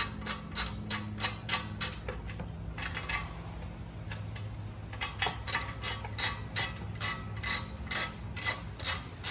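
Socket ratchet clicking in steady runs of about three clicks a second while the loosened exhaust bolts are backed out, with a pause of a few seconds between the two runs.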